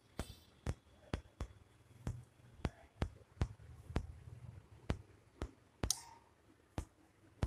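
A run of sharp clicks at an uneven pace, roughly two a second, made by the person filming to draw the cat's attention. A short hissy rustle comes near the start and another about six seconds in.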